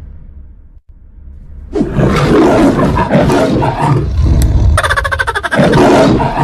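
A loud, rough roar in the manner of the MGM lion-logo roar, starting about two seconds in and lasting about four seconds.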